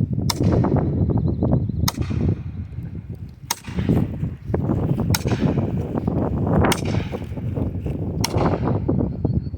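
Axe striking a felling wedge in the cut of an ash tree: six sharp strikes about every second and a half, driving the wedge to tip a tree that is sitting back on its cut. A low wind rumble on the microphone runs under the strikes.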